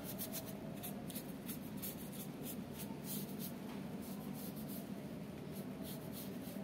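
Bristle paintbrush stroking Aquaproof waterproof coating onto a cosplay armor piece, a series of short, irregular scratchy brush strokes.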